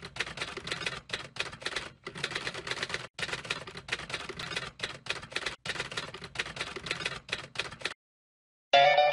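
Typewriter keys clacking in quick runs broken by short pauses, a typing sound effect that stops about eight seconds in. Music starts up just before the end.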